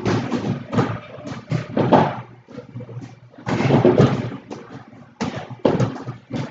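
Busy gym: irregular thuds of punches landing on heavy punching bags, mixed with general gym clatter.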